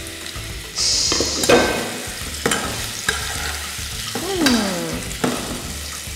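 Minced-meat balls frying in hot oil in a nonstick pot: a steady sizzle, flaring into a brighter hiss about a second in. A metal spoon clicks against the pot now and then as the meatballs are turned.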